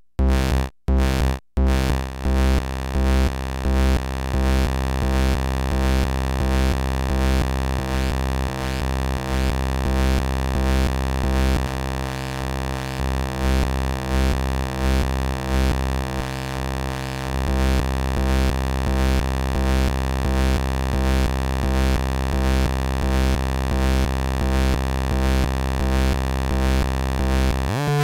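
Infernal Noise Machine desktop analog synthesizer sounding a deep bass tone with many overtones. It starts chopped into short bursts with gaps, then about two seconds in settles into a continuous tone with a regular throbbing pulse.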